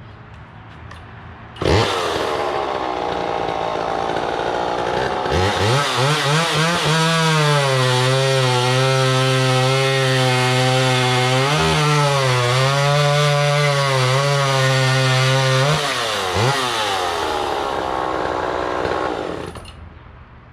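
Vintage 1970s Homelite EZ two-stroke chainsaw starting up about two seconds in and idling briefly. It is then revved up and held at high speed for about ten seconds with one short dip. It drops back to idle and shuts off near the end.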